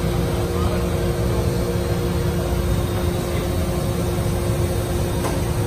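Steady industrial machinery hum: a low rumble with a few constant tones over it, like electric motors and pumps running.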